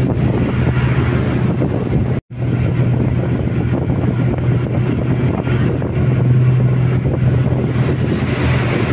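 Bus engine running with a steady low hum under road rumble and wind noise from riding in the moving bus. The sound cuts out completely for a moment a little over two seconds in.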